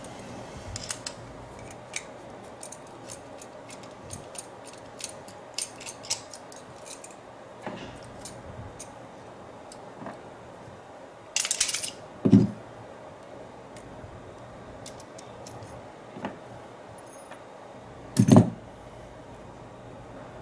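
A padlock and its ring of keys being handled: scattered small metallic clicks and clinks, a short jangle of keys about halfway through, and two dull thumps as the lock is set down, the second near the end and the loudest.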